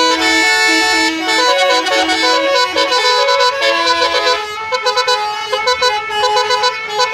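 Indonesian bus 'telolet' horn, a multi-tone horn playing a tune in steady, held notes that step from pitch to pitch. From about halfway the notes come shorter and quicker.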